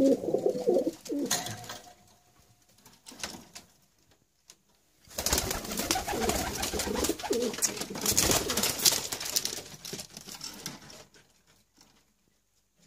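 Teddy pigeons cooing, in two bouts: one tailing off a second or two in, and another from about five seconds in until nearly the end.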